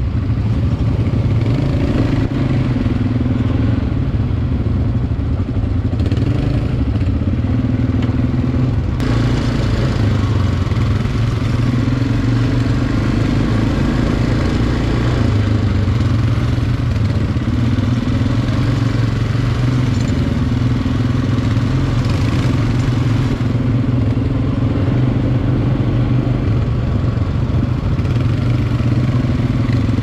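ATV (quad bike) engine running close by, its note shifting up and down every few seconds with the throttle.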